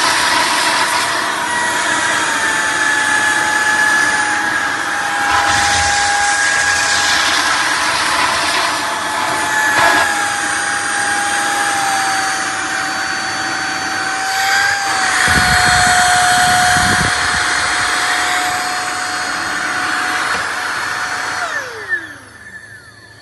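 Shark vacuum cleaner running with a loud, steady motor whine, then switched off near the end, its motor spinning down in a falling whine.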